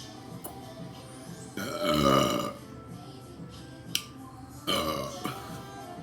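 Two loud burps: a long deep one lasting about a second, then a shorter one about three seconds later, with a sharp click between them.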